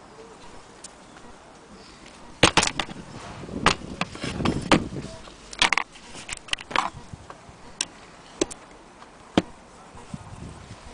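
Cast-iron hand crank wheel and bracket of an antique Willcox & Gibbs sewing machine being handled and set down on tile: irregular metal clicks and knocks, starting about two seconds in, some in quick clusters.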